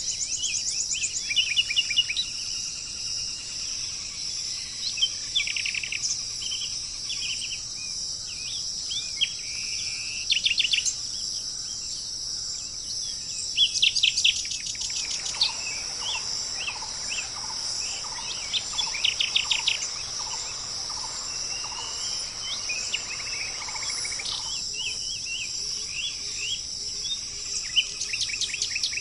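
Several birds chirping and trilling in short bursts over a steady, high-pitched insect drone. Through the middle, a lower bird note repeats steadily for about ten seconds.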